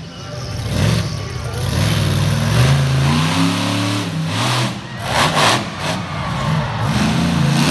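Monster truck engine revving hard, its pitch climbing and falling several times as the truck drives its freestyle run. About five seconds in come two sharp bursts of noise.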